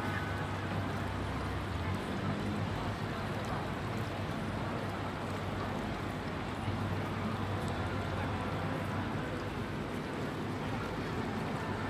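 Steady outdoor city ambience on a busy plaza: a constant wash of noise with faint voices of people in the background and a low hum.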